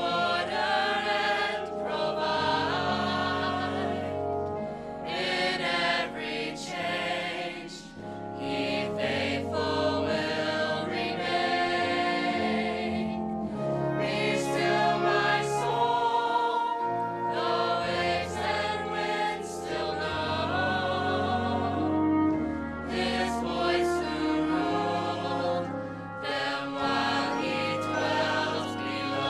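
Mixed choir of teenage voices singing a slow sacred piece in parts, the notes held and moving from chord to chord.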